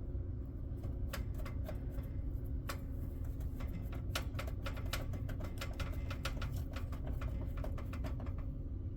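Irregular light clicks and taps of a screwdriver and screw on the metal PC case as the graphics card's bracket screw is fastened, over a steady low hum.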